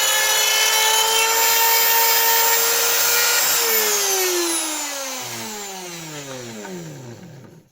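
Parkside PSFS 250 A1 milling machine's electric motor running at a steady high whine. About three and a half seconds in it is switched off and winds down, the pitch falling steadily over about four seconds until it stops.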